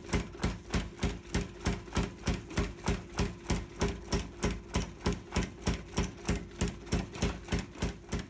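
Rapid, evenly spaced knocks, about four a second, over a faint low steady tone.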